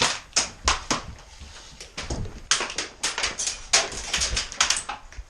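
Airsoft guns firing: a string of sharp snaps, a few single shots and then denser runs of quick shots in the second half.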